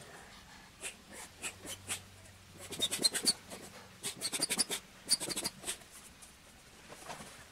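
A plastic foot pump is being worked to inflate an air mattress. It gives groups of short scratchy clicks and squeaks with each run of strokes, several times over.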